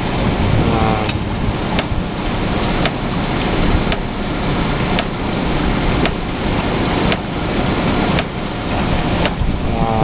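Closed-loop cooling tower running, its fans and water spray making a steady rushing noise, with a few faint clicks.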